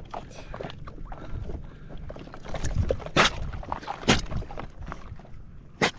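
Water sloshing and splashing around a small boat, with three sudden sharp splashes or knocks about three, four and six seconds in.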